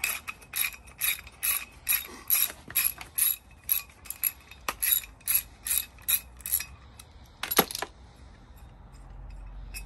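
Hand socket ratchet working an 11 mm bolt loose on a carpet kicker head, its pawl clicking on each back-stroke about twice a second. One last, louder click comes about three-quarters of the way through, then the clicking stops.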